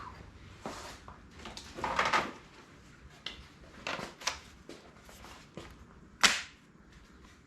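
Scattered metallic clanks and knocks of tools and parts being handled, with a sharp clack about six seconds in as the loudest.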